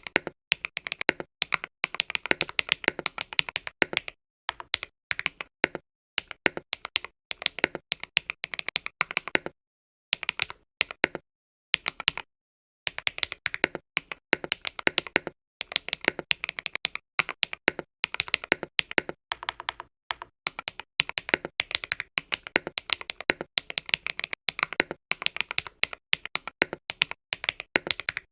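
Fast typing on a mechanical keyboard with Akko Lavender Purple tactile switches: a quick run of key clicks and clacks, broken by two short pauses about ten and twelve seconds in.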